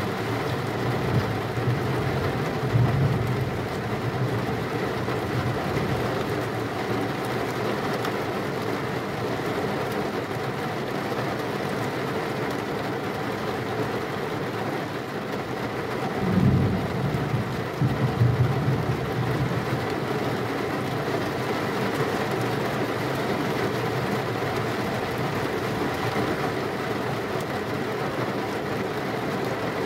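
Steady rain with thunder. A low rolling rumble fades over the first few seconds, and another rumble swells about halfway through and lasts a few seconds.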